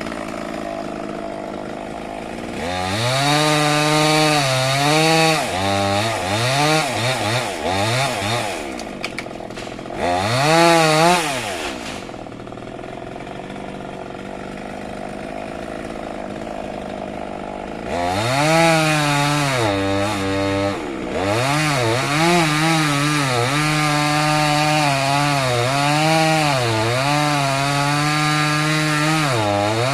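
Stihl chainsaw cutting into a jackfruit tree, its engine revving and repeatedly dipping in pitch as the chain bites the wood. About a third of the way in it drops to a quieter, steady run for several seconds, then goes back to full throttle and cuts again.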